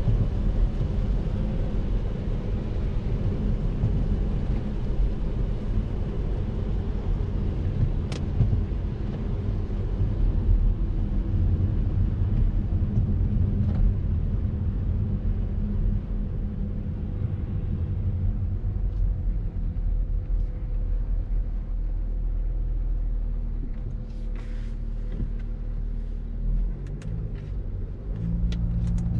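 Interior cabin noise of an Audi A7 3.0 TDI V6 diesel driving on a wet road: a steady low rumble of engine and tyres while the car slows in traffic. The tyre hiss fades as the speed drops, and a few light ticks come near the end.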